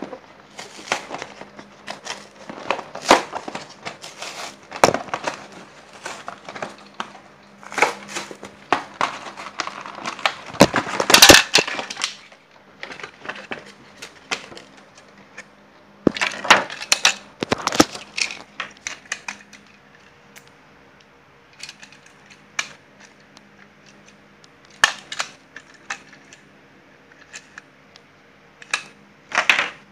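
Hands opening the toy engine's packaging: irregular clicks, knocks and crinkling, with a denser, louder crackling stretch a little over ten seconds in, then sparser clicks.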